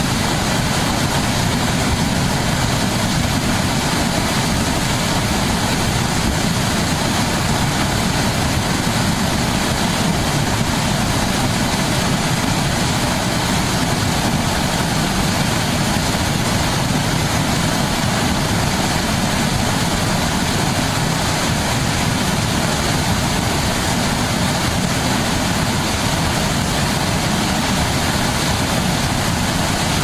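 Debris flow of mud, water and stones pouring over a concrete check dam: a loud, steady rushing noise with a deep low rumble underneath.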